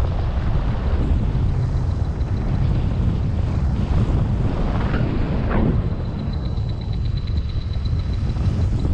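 Wind rushing over the microphone of a paraglider pilot in flight: a loud, steady, low rumble of buffeting airflow.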